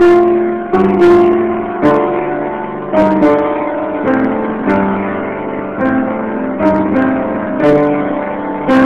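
Music: an instrumental passage of a song, with a piano playing chords struck about once a second, each ringing and fading before the next.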